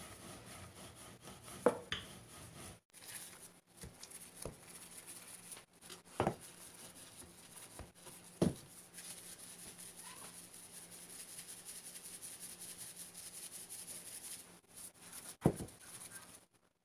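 Wooden rolling pin and kitchen utensils handled on a wooden rolling board: light rubbing and scattered ticks, with about four sharper knocks as things are set down.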